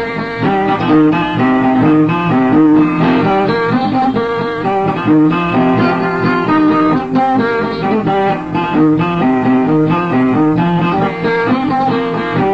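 Guitar playing an instrumental passage of old Oromo music: a steady run of quick plucked notes over lower held notes.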